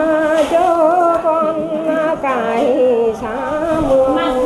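Mường folk singing (hát tiếng Mường): a single voice holding long, wavering notes that slide from one pitch to the next.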